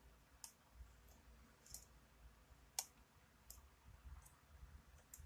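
Faint, sharp clicks of a lock pick working the pins of a challenge lock under tension. About five clicks come at irregular intervals, and the loudest is a little past the middle.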